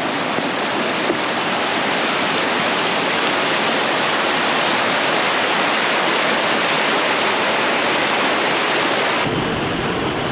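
Mountain stream rushing over boulders: a steady, loud rush of water. It changes abruptly about nine seconds in.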